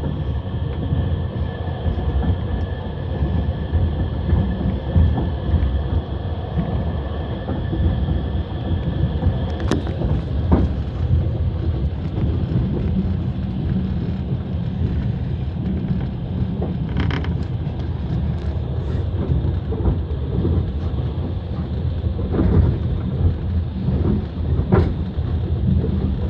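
Passenger train running on the rails, heard from inside the carriage: a steady low rumble with a few sharp knocks of the wheels later on, and a thin high whine over the first third.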